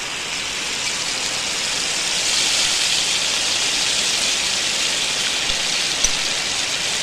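Steamed chicken pieces shallow-frying in hot coconut oil in a pan: a steady sizzling hiss that grows a little louder about two seconds in.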